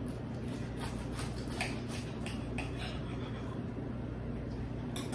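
Knife cutting through a steamed bun sandwich filled with crispy deep-fried chicken: a run of short crunches and crackles over the first three seconds or so, and one more near the end, over a steady low hum.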